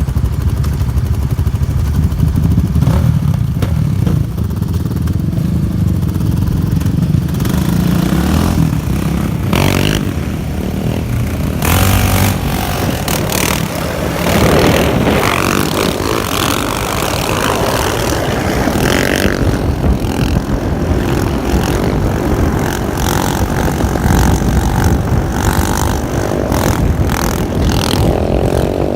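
Sport quad bike and motorcycle engines running and revving on the move, with repeated sharp clattering knocks.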